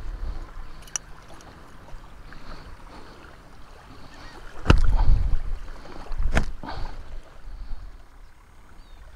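Small waves lapping at the shoreline with wind buffeting the microphone, and two loud knocks, one about halfway through and another a second and a half later.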